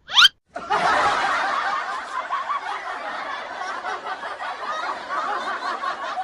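A quick rising whistle-like sound effect, then an edited-in laughter sound effect of snickering and giggling.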